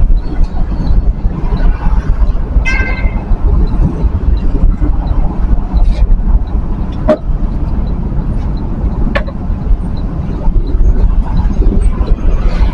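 Steady low rumble of engine and road noise from a vehicle on the move, with a short vehicle horn toot about three seconds in and two sharp clicks later on.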